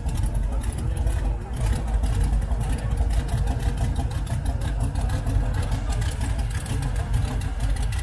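Hot rod engine with short open exhaust headers idling: a steady low rumble with a rapid, even pulse.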